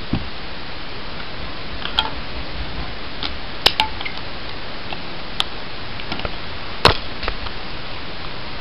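Hard plastic packaging and an iPod Touch being handled: scattered sharp clicks and taps at irregular spacing, the loudest about seven seconds in, over a steady hiss.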